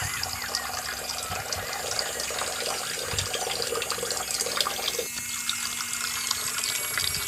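Water from a miniature DIY electric pump pouring in a steady stream out of a small pipe and splashing into a shallow tray of water, with a faint steady motor hum underneath. About five seconds in the splashing thins as the stream runs into a small steel pot.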